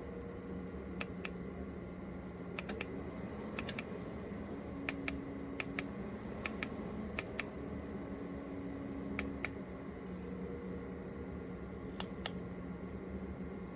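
A steady machine hum, with sharp clicks, mostly in quick pairs, every second or so.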